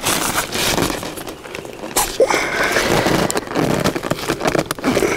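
Rustling and crinkling of the Big Agnes Copper Spur UL1 tent's nylon rain fly as it is handled and buckled down, with a few sharp clicks scattered through it.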